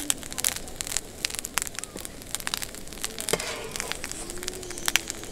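Miso-glazed rice balls (yaki onigiri) grilling in a frying pan, crackling with irregular sharp pops and spits.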